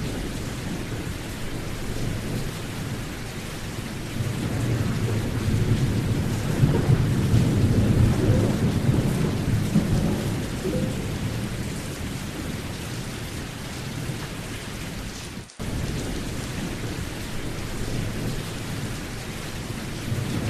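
Steady rain with a low rolling rumble of thunder that swells through the middle, and a brief cut in the sound about three quarters of the way through.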